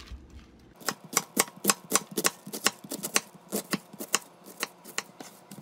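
Chef's knife shredding a head of green cabbage against a cutting board: a quick, even series of crisp chops, about four a second, starting about a second in.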